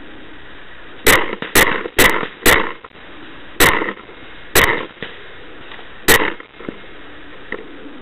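Paintball marker firing seven shots: four in quick succession about half a second apart, then three more spaced about a second apart. Each shot is a sharp pop, very loud and close to the microphone as though from the Brass Eagle Stingray the camera is mounted on.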